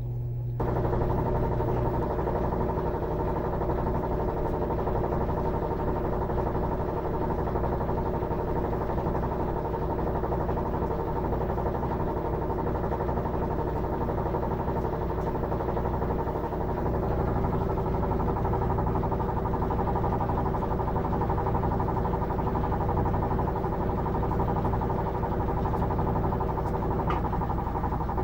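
Electrolux LM13Q top-load washing machine in its spin cycle, drum spinning with a steady hum and several held tones. The spin is near its end, lengthened by the turbo-dry function.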